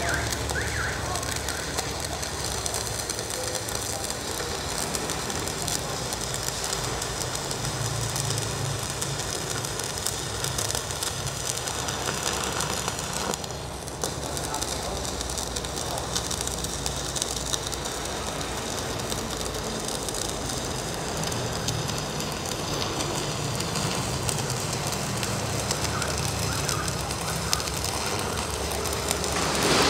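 Two stick (MMA) welding arcs burning 4 mm electrodes at once, fed by Protech MK200 and Jacpro MMA325 inverter welders: a steady arc sizzle that dips briefly about halfway through.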